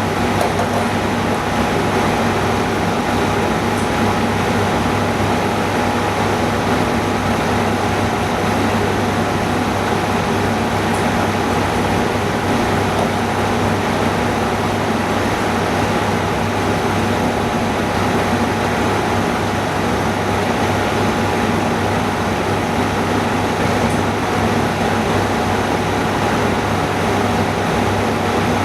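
Steady drone of running equipment in a refurbishing workroom: an even rushing noise with a constant low hum and a thin steady whine, unchanging throughout.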